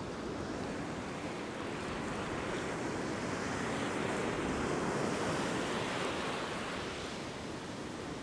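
Ocean surf breaking and washing up the sand, a steady rush that swells about halfway through and eases near the end.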